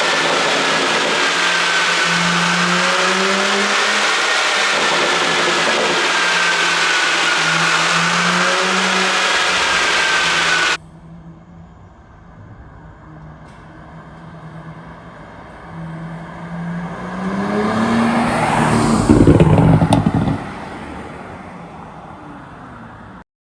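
Porsche Panamera 4S twin-turbo V6 with a pops-and-bangs ECU tune. For about ten seconds it runs loud and steady with its pitch wandering up and down under heavy road and wind noise; then the sound cuts suddenly. In a quieter stretch the engine is revved up to a loud peak with a burst of sharp exhaust pops and crackles, then drops back.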